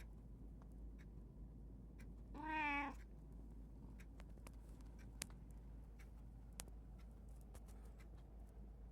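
A domestic cat meowing once, about two and a half seconds in: a single meow of under a second with a slightly wavering pitch. Faint scattered clicks and a steady low hum sit under it.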